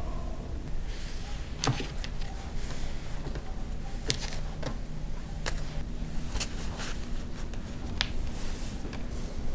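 Several sharp taps and knocks as lavash-wrapped rolls and a wooden serving board are handled and set down on a wooden table, over a low steady hum.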